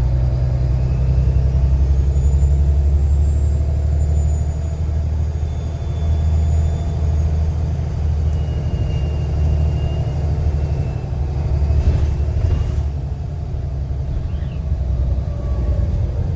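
Volvo B7TL bus's six-cylinder turbo-diesel engine running with a deep steady drone, a thin high turbo whistle rising and falling above it.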